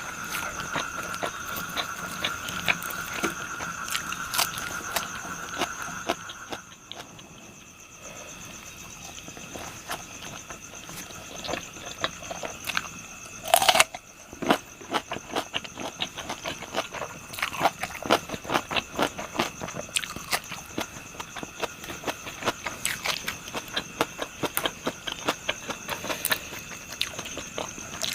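Close-miked chewing and crunching of crisp fried pork intestines and liver: many small wet clicks and crackles, with insects singing steadily behind. A brief louder sound about halfway through.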